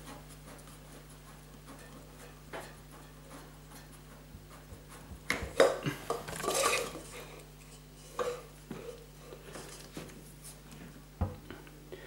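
A plastic hose fitting being worked loose and handled over a metal saucepan, with scattered light clinks and knocks against the pan, loudest about five to seven seconds in.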